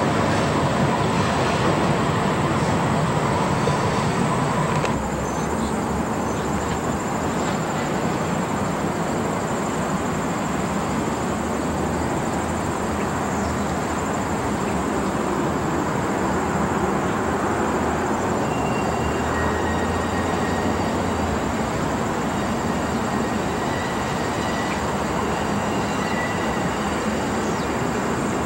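Conrail diesel-electric locomotive running as it moves along the track, a steady engine and rail noise that drops a little about five seconds in.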